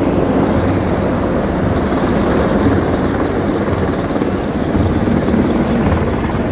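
A column of Marine Corps KAAV tracked amphibious assault vehicles driving past, a loud, steady rumble of diesel engines and tracks.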